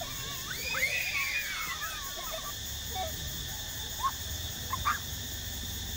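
Children's high-pitched voices squealing and calling out in the first two seconds, then a few short rising yelps, over a steady high background hiss.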